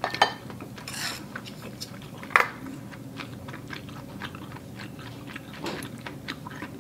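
Close-miked chewing of a mouthful of Korean rice cake soup, with many small wet mouth clicks and two sharper, louder clicks, one just after the start and one about two and a half seconds in.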